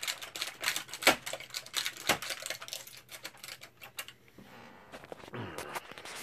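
Rapid, irregular clicking and tapping for about four seconds, then a quieter rustle with a few more clicks near the end.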